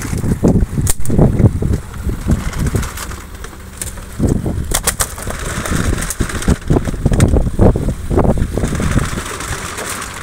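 Freshly caught skipjack tuna thudding and slapping as they are handled in a skiff and tossed up onto a fishing boat's deck: an irregular run of heavy knocks, over a steady low rumble.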